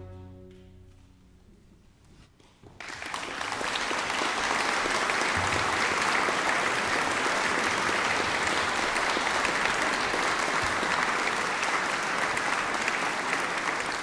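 The final chord of a baroque string ensemble rings out and fades over about two seconds. After a brief lull, an audience starts applauding about three seconds in, with steady, dense clapping.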